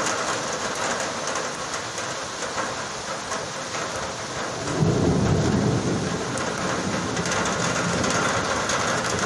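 Heavy rain pouring steadily, with a rumble of thunder breaking in suddenly about five seconds in and rolling on for a couple of seconds.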